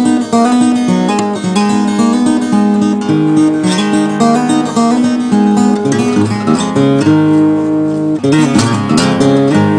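Guitar music: an acoustic guitar playing a run of picked notes and chords.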